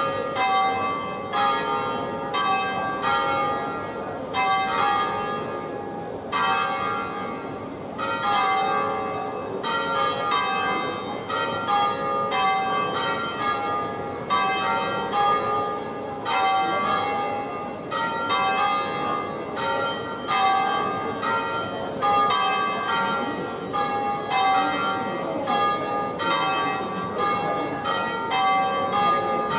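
Three bronze church bells of Bergamo Cathedral swinging on their wheels in a 'distesa' peal. They ring over and over in a free, unsynchronised order, each stroke overlapping the hum of the ones before it.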